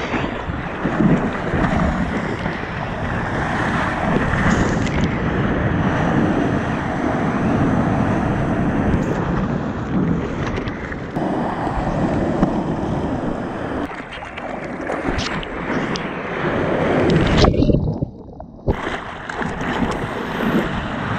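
Surf rushing and splashing around a longboard as it rides through breaking whitewater, with wind buffeting a mouth-held GoPro. About three seconds before the end the sound drops suddenly, goes muffled and quieter for under a second, then returns.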